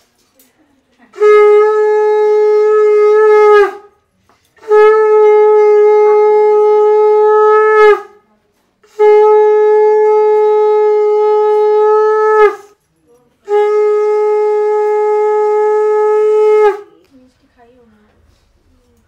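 Conch shell (shankha) blown in four long blasts, each held at a steady pitch for about three seconds with a short break between them, the pitch dipping as each blast ends.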